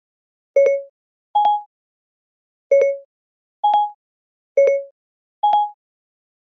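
iPad Siri chimes sounding over and over: short electronic tones alternating low and higher, three low-high pairs with silence between them.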